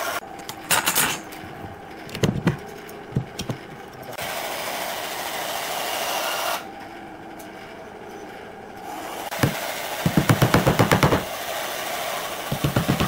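Bursts of sharp impacts, with a fast run of about ten a second near the end, and a steady hiss between them.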